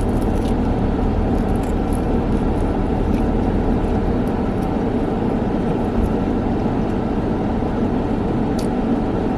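Steady rumble and hiss of a car's engine and ventilation heard inside the cabin, unchanging throughout, with a few faint ticks.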